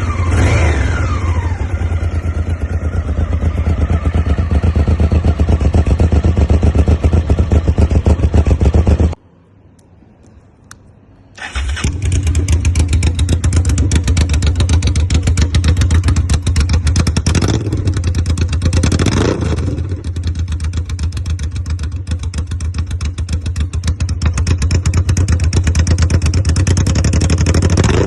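Honda Africa Twin 750's V-twin through an Arrow exhaust, idling as it comes down from a throttle blip. It shuts off abruptly about nine seconds in, is restarted a couple of seconds later, and idles again with two short blips of the throttle and another near the end.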